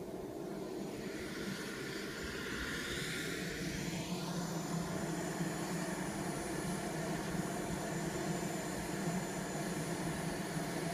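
RC model jet's engine running steadily with a jet whine. A sweep in pitch, falling and then rising, comes between about one and four seconds in.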